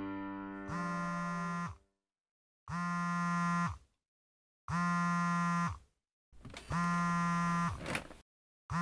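Mobile phone buzzing with an incoming call: one-second buzzes repeating every two seconds, four of them, with a fifth starting at the end.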